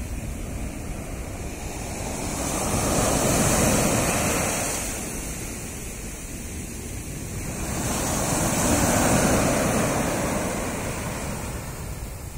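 Surf on a sandy beach: a wave breaks and its foam washes up the sand about three seconds in, and another about nine seconds in, the rushing noise easing off between them.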